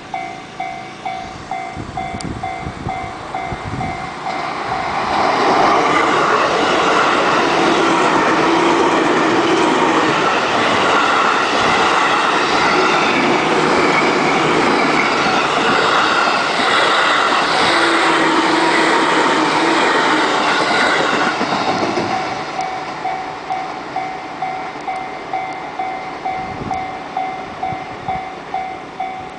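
Level-crossing warning alarm dinging in a steady rhythm, a little under two strikes a second. From about five seconds in, a 211 series electric train runs past over the crossing, loud enough to drown the alarm, and fades out around twenty-two seconds, after which the alarm goes on ringing.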